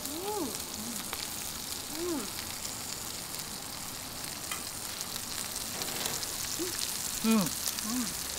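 Meat sizzling on a round Korean barbecue grill pan: a steady crackling hiss, with a few short hummed murmurs from people eating.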